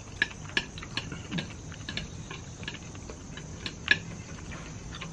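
Eating sounds: wooden chopsticks clicking against the plates and chewing, small irregular clicks with one louder click near four seconds in. A faint steady high insect trill underneath.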